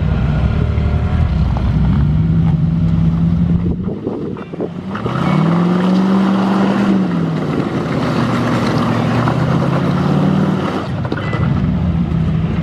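Off-road Jeep engine running under load, its revs rising about five seconds in, holding for a couple of seconds, then dropping back, with a short lull just before the rise.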